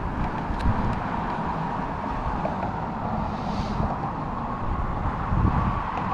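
Outdoor wind rumble on the microphone mixed with traffic noise from a car crossing a road bridge.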